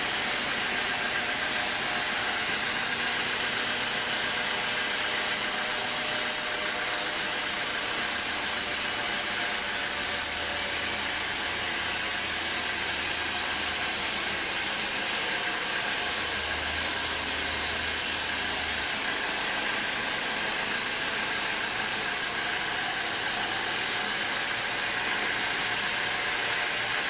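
Home-built band sawmill running, its blade sawing lengthwise through a teak beam: a steady mechanical whine and rasp with a few held tones over dense noise.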